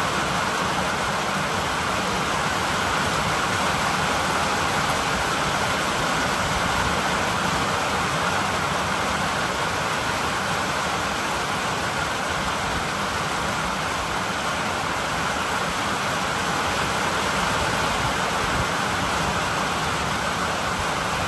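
Steady rain falling during a storm, an even unbroken hiss.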